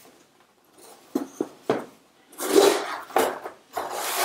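Cardboard packaging being handled and opened: a few light knocks, then the inner box rustling and scraping as it slides out of its cardboard sleeve.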